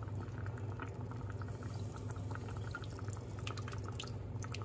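Pot of cioppino, a tomato-based seafood stew, simmering: a steady run of small, irregular bubbling pops, with lemon juice dripping into the pot, over a steady low hum.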